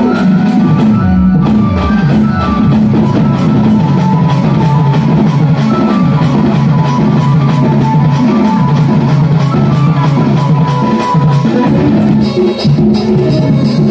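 Live Sambalpuri folk band music, played loud: a keyboard melody over fast, steady drumming.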